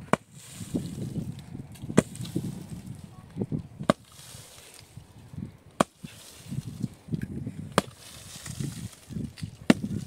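Six sharp strikes, evenly spaced about two seconds apart, with low rustling and shuffling between them.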